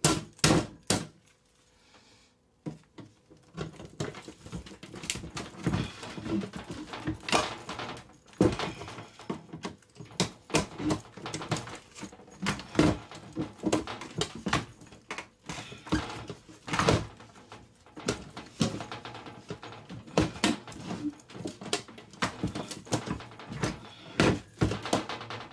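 Small steel biometric handgun safe being pried at the lid seam with a pry tool: irregular metallic knocks, clicks and scrapes as the tool is forced in and levered.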